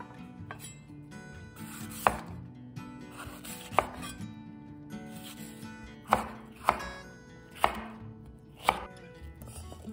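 Chef's knife cutting a green bell pepper on a bamboo cutting board: six sharp, irregularly spaced knocks of the blade striking the board, with a soft slicing rasp before some of them.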